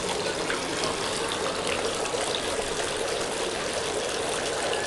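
Water splashing and trickling steadily from the basins of a tiered fountain.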